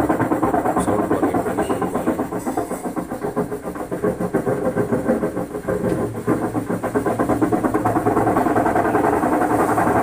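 Whirlpool WhiteMagic Premier top-load washing machine running with a loud, rough, rapid rattling drone over a steady hum, growing louder about eight seconds in. The noise is terribly loud, the sign of a failed drum bearing.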